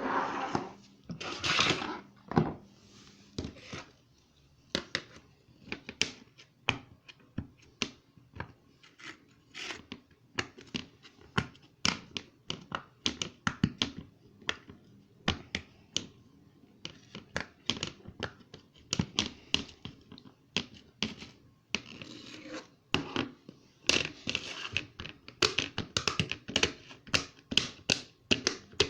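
Silicone pop-it fidget toy bubbles being pressed one after another: a long run of sharp pops, irregular and sometimes quick, with scratchy rubbing near the start and again near the end.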